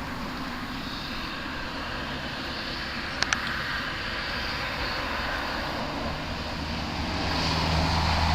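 NDQ PX-16 electric RC boat running on the water, its motor noise growing louder near the end, with two sharp clicks about three seconds in.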